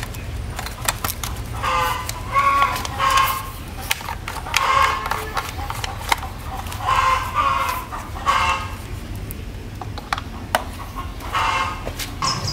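Chickens clucking, short calls coming every second or two, often in pairs, with scattered sharp clicks between them.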